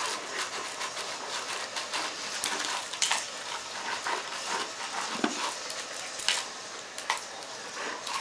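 Bloodhound eating crushed ice from a stainless steel bowl: steady crunching and licking, with ice rattling against the metal and a few sharper clicks.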